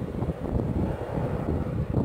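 Wind buffeting the microphone outdoors: an uneven, gusting low rumble with no steady tone.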